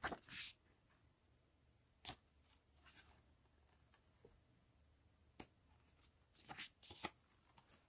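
Pages of a glossy photobook being turned by hand: a few short, faint paper rustles and flicks, several seconds apart.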